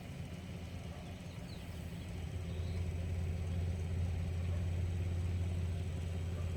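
Steady low rumble of an idling vehicle engine, growing louder about two and a half seconds in.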